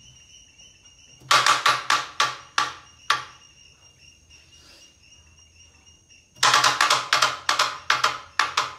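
Carrom striker flicked across a champion carrom board, knocking against the cushions again and again as it rebounds end to end, the knocks coming further apart as it slows: a show of how far the striker travels on the board. A second flick about five seconds later gives another run of rebound knocks.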